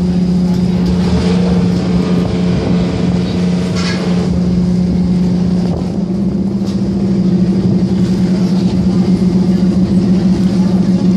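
Cruise boat's engine running with a steady low hum, heard from on deck; the level pulses more in the second half.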